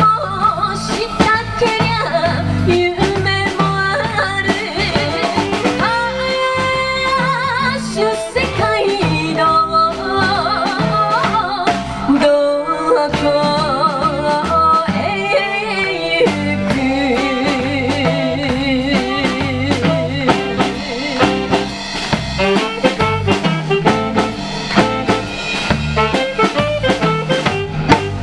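Live band playing a song: a woman singing over electric guitar, bass and drum kit.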